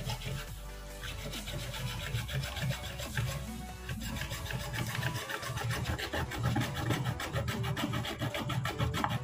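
Hacksaw blade sawing through a PVC sheet in a run of short back-and-forth rasping strokes, plainer in the second half, over background music.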